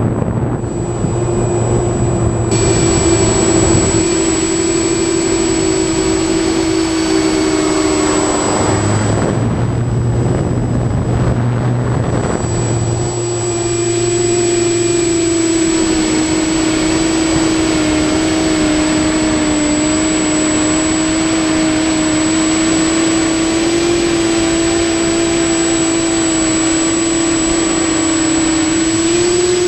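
TBS Discovery Pro quadcopter's electric motors and propellers, recorded from the camera on the aircraft, giving a steady whine that wavers slightly in pitch over wind rush. A thin, constant high tone sits above it.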